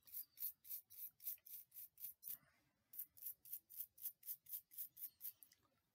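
Toothbrush bristles scrubbing a metal cap badge with quick back-and-forth strokes, about three or four a second, brushing liquid polish into the grooves of the badge. Faint, with a short pause a little over two seconds in.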